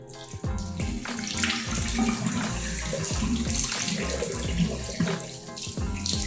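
Water running from a tap into a sink while the face is rinsed.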